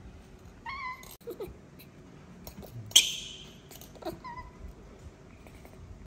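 A baby monkey gives two short, high squeaky calls, one about a second in and another about four seconds in. About three seconds in comes a sharp knock with a brief scrape, the loudest sound, from a kitchen knife cutting avocado over a ceramic plate.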